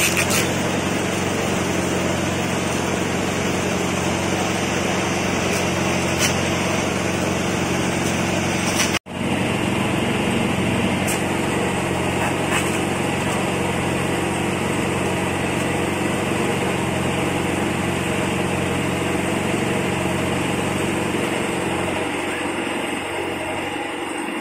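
A motor or small engine running steadily with a constant hum; the sound drops out for an instant about nine seconds in.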